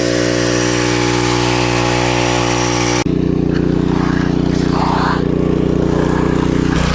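Engine running steadily at a constant speed. The sound changes abruptly about three seconds in, as between two clips, with the second part deeper.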